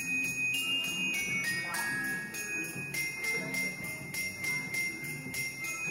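Christmas song with sleigh bells jingling steadily on the beat over a simple melody of held notes.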